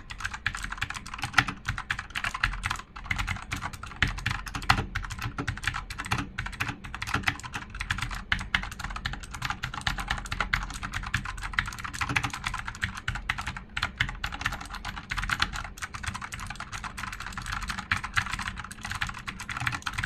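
Fast, continuous typing on a Fantech Maxfit61 60% mechanical keyboard with Outemu blue switches: a dense, irregular stream of clicky keystrokes, several a second.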